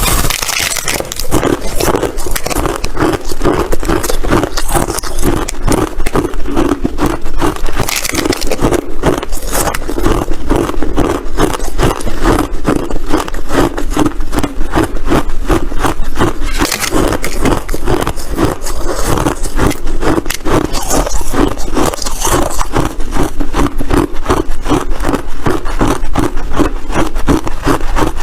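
White, crunchy ice being chewed close to the microphone: continuous rapid, irregular crunching.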